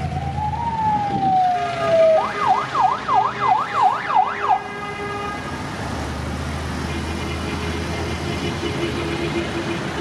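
A vehicle's electronic siren gives one slow falling wail, then switches to a fast yelp, rising and falling about three or four times a second, and stops about four and a half seconds in. A low vehicle engine rumble follows.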